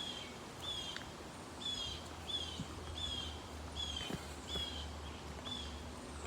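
A bird repeating a short, high, slightly falling chirp about every two-thirds of a second, over a steady low hum.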